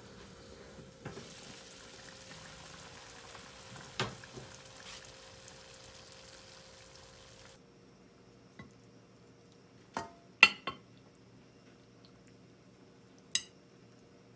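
A covered pan of braised beef short ribs simmering on a gas stove: a steady bubbling hiss with a couple of light knocks. About halfway through it cuts to a quieter stretch with a few sharp clinks as the ribs are moved from the pan onto a ceramic plate.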